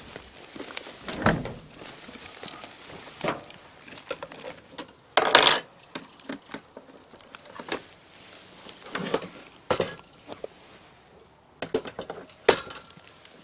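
Metal beekeeping tools and a bee smoker clinking and knocking as they are handled in a plastic equipment crate. Scattered sharp clicks, with one louder half-second rasp about five seconds in.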